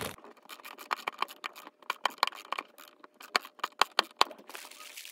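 Hand screwdriver driving a small screw through a metal drawer slide into a particleboard drawer: a run of irregular clicks and taps, the sharpest coming in a quick cluster about two-thirds of the way in.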